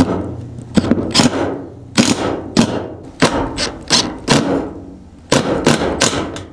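Makita 18 V cordless impact driver driving hex-head metal roofing screws through steel roof sheets, hammering in short bursts, several in a row with brief pauses between them.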